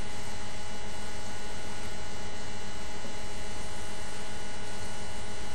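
Steady hiss with a constant electrical hum, the recording's own background noise, unchanging throughout.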